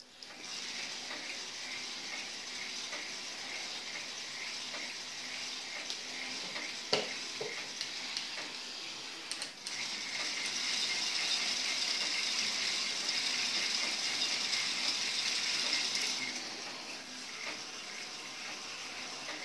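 Several small K'NEX electric motors whirring as they drive plastic gear trains and differentials, a steady mechanical whir with a faint regular ticking of gear teeth. It gets louder about ten seconds in and drops back about six seconds later, with a single click about seven seconds in.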